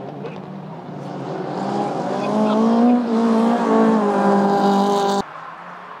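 A rallycross car's engine growing louder as the car comes closer, held at high revs, then cut off abruptly about five seconds in.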